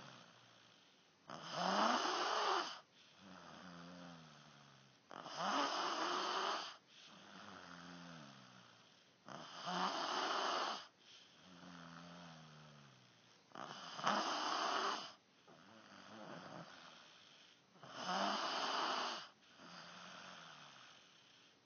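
Snoring in a slow, steady rhythm: five loud, rasping snores about four seconds apart, each lasting about a second and a half, with a quieter breath falling in pitch between them.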